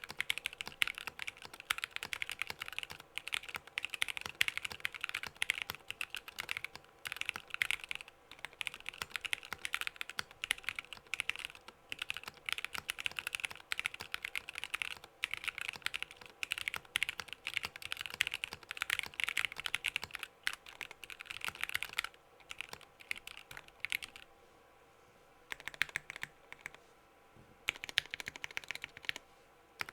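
Typing on an Arisu mechanical keyboard with lubed NovelKeys Cream linear switches in an acrylic sandwich-mount plate: a fast, dense run of keystrokes that thins out after about 22 seconds, with two short pauses near the end.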